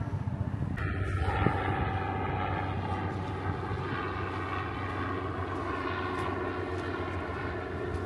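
A steady engine drone, one even humming pitch with many overtones, that sets in about a second in and holds steady.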